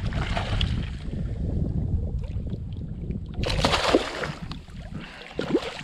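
Hooked redfish thrashing and splashing at the surface beside a kayak, with a loud splash about three and a half seconds in. Wind buffets the microphone throughout.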